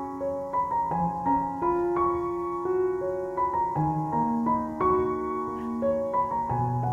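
Background piano music: a slow, gentle melody of held notes.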